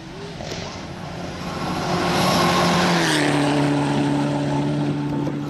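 Four-wheel-drive rally car's engine at high revs, growing louder as it comes through the gravel corner and passes close by, with a hiss at the loudest moment. The engine's pitch drops about three seconds in, then holds steady.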